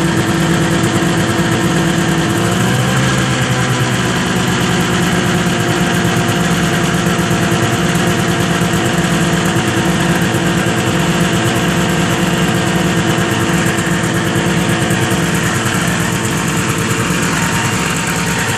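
1975 Arctic Cat Cheetah snowmobile's two-stroke engine, with a rebuilt Walbro WF-8 carburetor, running steadily at idle, with a slight change in pitch about three seconds in. The owner says the sled still struggles after the rebuild.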